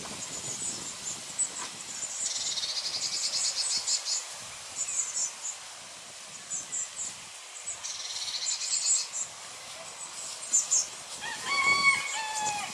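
Blue tits calling: high, thin chirps throughout, with two fast trills, one about two seconds in and one near the middle. Near the end a rooster crows.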